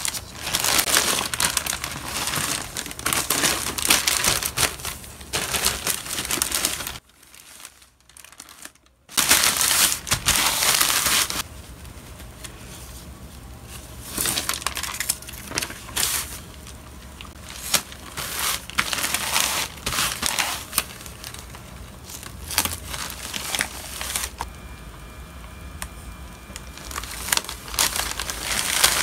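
Plastic courier mailer bags crinkling and rustling under the hands as the parcel is packed, loud for the first several seconds and again around ten seconds in, with a brief near-silent break between. After that, softer rustling of paper and plastic with small taps as a shipping label is smoothed onto the mailer.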